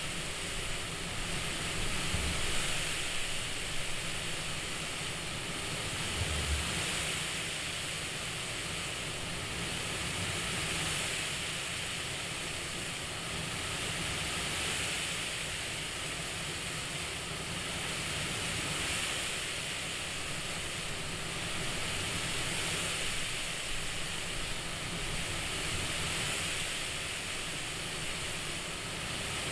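CPAP-style breathing noise: a steady airflow hiss that swells and eases about every four seconds, like slow breaths through a mask.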